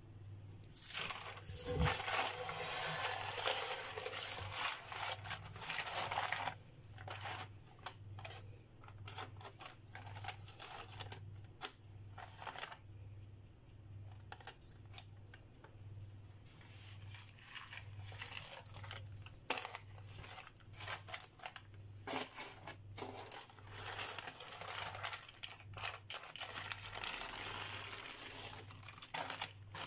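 Baking paper crinkling and rustling as hands handle dough in a lined pan, in irregular bursts with small clicks and taps. A faint low hum pulses evenly underneath.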